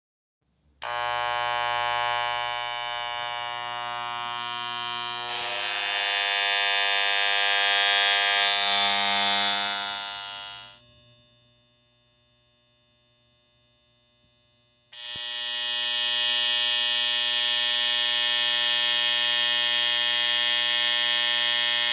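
Electric hair clipper running with a loud, steady buzz. It switches on about a second in, grows louder and brighter around five seconds, and cuts off near eleven seconds. It switches back on about fifteen seconds in.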